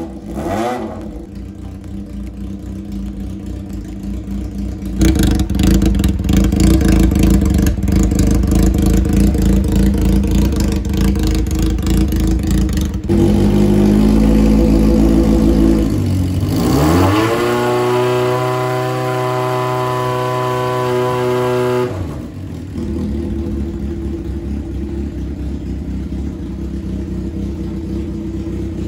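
Honda CBX400F's air-cooled inline-four running through open straight pipes: idling, growing louder and uneven about five seconds in, then revving up sharply past the middle, holding high revs for about five seconds and dropping back to idle.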